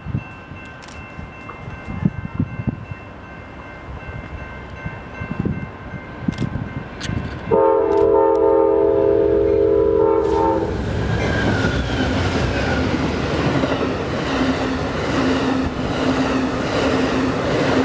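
An Amtrak P42DC diesel locomotive blows its multi-note air horn once, a chord held for about three seconds, starting about seven seconds in. The passenger train of Superliner cars then passes close by at speed, with a loud rumble of wheels on rail.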